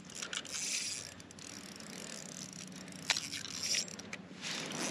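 Small spinning reel on an ice-fishing rod being cranked to reel a hooked fish up through the hole, its gears whirring and clicking, with one sharper click about three seconds in.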